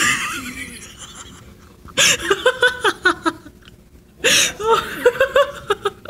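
High-pitched laughter in two bouts, about two seconds in and again about four seconds in. It follows a short rush of noise at the start as a large flock of small birds takes flight.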